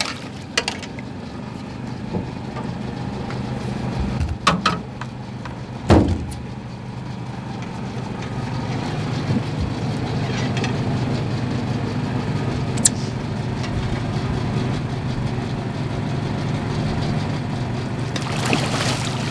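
An engine on the bowfishing boat running steadily with a low hum. A few sharp knocks land about four and six seconds in, the one at six seconds the loudest.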